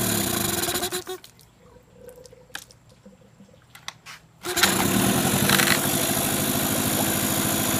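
2001 Mercury 15 hp outboard motor running, then cut off about a second in, as by its kill switch. A few small clicks follow in the quiet, then the motor fires and catches at once about four and a half seconds in and runs on steadily.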